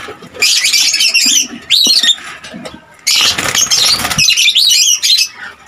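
Lovebirds in the cage giving rapid, shrill chattering calls in two bouts, starting about half a second in and again about three seconds in. Under the second bout there is a brief rushing, flapping noise.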